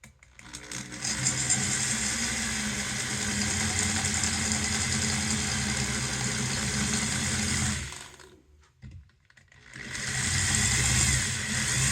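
Electric drill running under load, drilling out a rivet on a blower motor's housing. It runs steadily for about seven seconds, stops for about two seconds, then starts again near the end.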